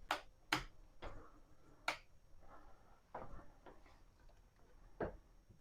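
Sharp switch clicks, about five spread over several seconds, with faint handling noise between, as mains power to a newly connected LED strip is switched back on to test it.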